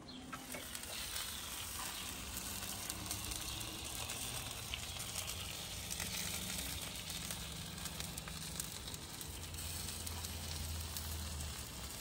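Spatchcocked chickens sizzling steadily on the hot grate of a Big Green Egg ceramic charcoal grill, with faint crackles from juices dripping onto the coals.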